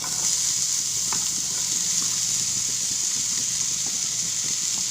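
Sliced onions sizzling steadily in hot coconut oil in a frying pan, starting with a sudden burst as they go in.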